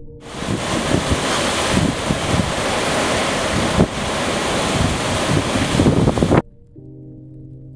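Hurricane wind and heavy rain, with gusts buffeting the microphone. It starts suddenly and cuts off abruptly about six seconds in.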